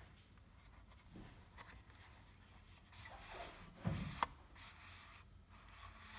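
Paperboard drawer-style eyelash box being handled and slid open: faint rubbing of card against card, then a soft knock about four seconds in, followed at once by a sharp click.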